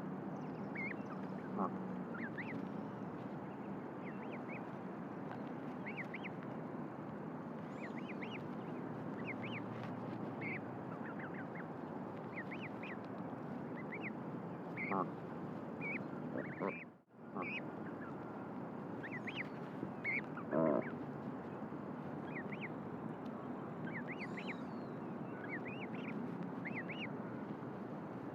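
Newly hatched duckling peeping: many short, high chirps, some louder than others, faint over a steady background hiss.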